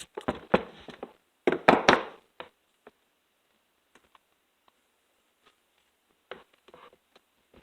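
Needle-nose pliers and chain brake parts clicking and knocking against the chainsaw as a pin is worked into line. There is a run of sharp clacks in the first two seconds, then a few faint ticks, and more clicks near the end.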